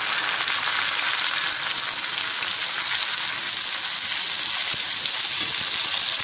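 Chopped onions, shallots, garlic, ginger and freshly added tomato sizzling in hot oil in a kadai, a steady hiss, while a steel spoon stirs them as they sauté.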